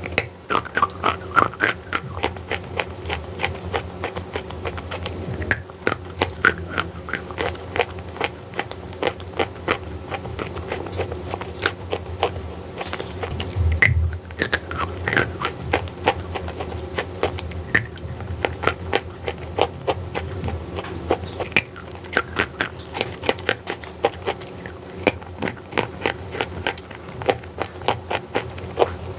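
A person biting and chewing crunchy chalk and clay close to the microphone: a dense run of rapid sharp crunches and crackles over a steady low hum.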